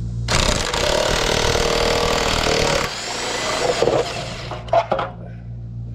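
Electric impact wrench hammering on the anode rod's hex head on top of a water heater, trying to break a stuck anode rod loose. A loud rattling burst starts about a third of a second in and lasts about two and a half seconds, then eases off for about a second, followed by a few sharp knocks near the end.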